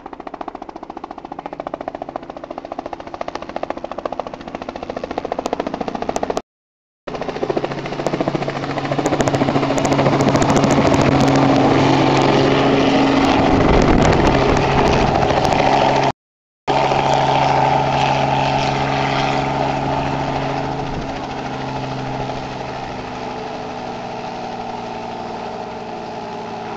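A small two-bladed helicopter approaches and grows louder, is loudest as it hovers low and sets down on a helipad, then keeps running on the pad with its rotor turning, the sound easing off after touchdown. The audio cuts out completely twice, briefly.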